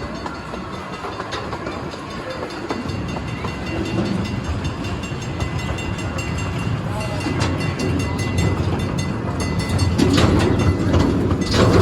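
Zoo passenger train running along its track, heard from a riding coach: a steady rumble with wheels clicking over the rails. The rumble grows louder near the end.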